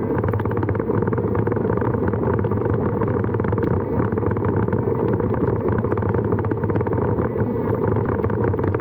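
A vehicle on the move, its engine and road noise running steadily at an even level, with wind buffeting the microphone.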